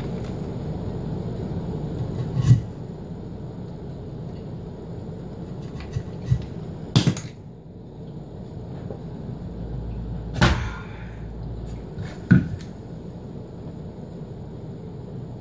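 About five separate knocks of a mallet on a pine bench leg, spaced a few seconds apart, driving a very tight joint home.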